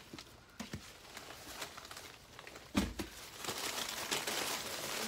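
Plastic packaging crinkling and rustling as party supplies are handled, with scattered light clicks, a single knock near the middle, then steadier crinkling.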